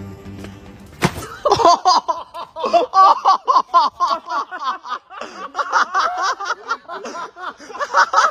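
Music cuts off with a sudden smack about a second in, then people laughing hard in quick high-pitched bursts at a cake smashed into a face.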